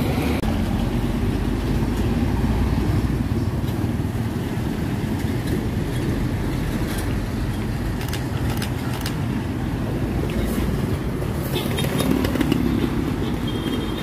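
Street traffic with engines running as vehicles pass, including a motorcycle tricycle with sidecar. Near the end an Isuzu Giga tractor-trailer's diesel engine grows louder as it comes up close.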